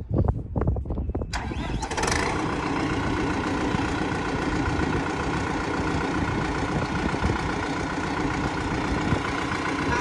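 A few knocks, then an engine starts about a second in and settles into a steady idle.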